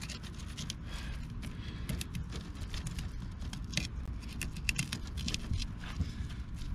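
Fillet knife cutting along a red drum's backbone and through its hard scales: a scattered run of small crackling clicks and scrapes over a steady low rumble.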